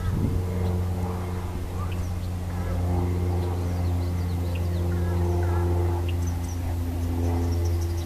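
A steady low motor-like hum, shifting a little in pitch, runs throughout and is the loudest sound. Faint short bird chirps and whistles, some of them gliding, come over it, mostly in the middle.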